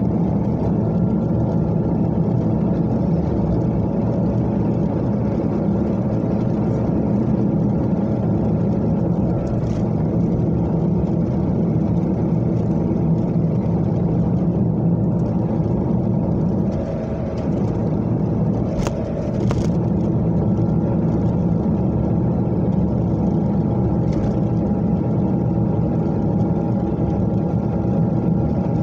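Steady engine and tyre noise of a car cruising on an expressway, heard inside the cabin, with a short dip in level and a couple of faint clicks about two-thirds of the way in.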